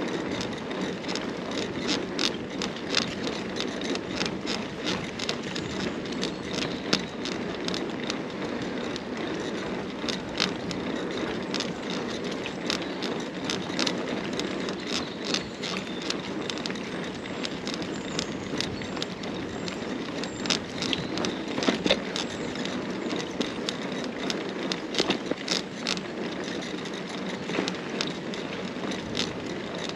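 Carrera Hellcat mountain bike ridden over a rough off-road trail: steady tyre noise on the rough surface, with frequent clicks and rattles from the chain and frame over bumps.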